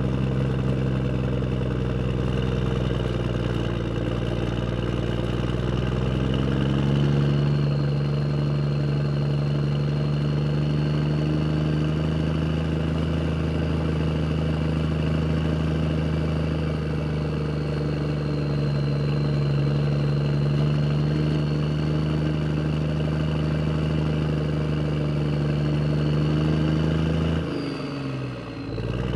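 A motor vehicle's engine running steadily under way. A few seconds in its pitch steps up slightly and a faint high whine joins it. Near the end the sound dips briefly and the engine note changes abruptly.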